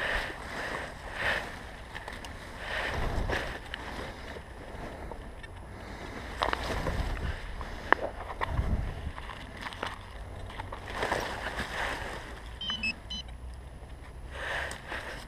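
Hand digging in soil and dry leaf litter: scraping and rustling as a small digging tool works the hole, with a sharp click about eight seconds in.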